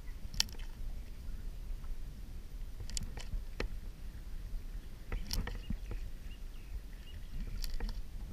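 Hands squishing, poking and stretching blue cloud slime in a plastic bowl, giving scattered sharp wet crackles and pops every couple of seconds over a steady low rumble.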